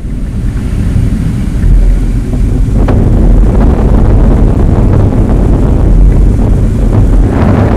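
Wind buffeting the microphone: a loud, continuous low rumble, with a single brief knock about three seconds in.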